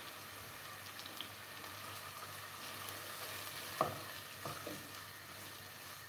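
Finely chopped onion and habanero pepper sizzling in hot olive oil in a saucepan. A little before four seconds in, a silicone spatula starts stirring them, knocking and scraping against the pan twice.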